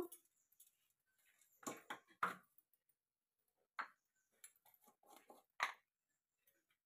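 Faint, scattered clicks and light knocks of kitchen utensils being handled, a steel spoon against a steel bowl and small containers set down, about six in all with quiet between them.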